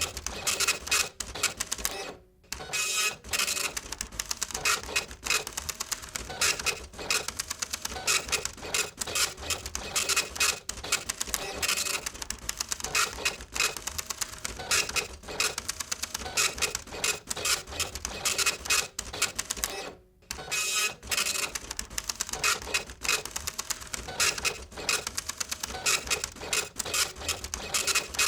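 Photocopier running, with a dense, fast mechanical clatter of clicks and rattles. It stops twice for a moment, about two seconds in and again about twenty seconds in.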